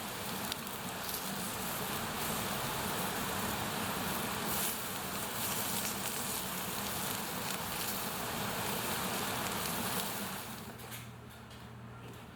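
Wood bonfire burning, a dense hiss with scattered crackles, which drops away sharply near the end, leaving a faint low hum.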